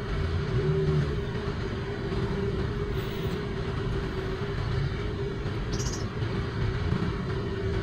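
Honda CB400 Super Four's inline-four engine running steadily at low speed amid surrounding road traffic, with two brief high-pitched chirps about three and six seconds in.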